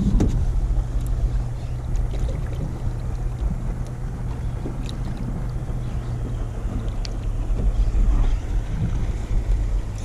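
Wind rumbling on the microphone over a steady low hum aboard a boat, with a few faint light clicks.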